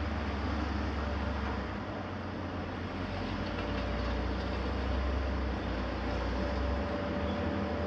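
Heavy demolition machinery running together: the diesel engines of tracked excavators and a mobile rubble crusher make a continuous mechanical drone. The low engine rumble changes in strength a few times as the machines work.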